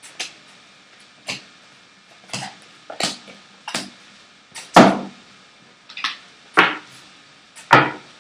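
A deck of tarot cards being shuffled by hand: short, sharp card slaps about once a second, the loudest a little past the middle and near the end.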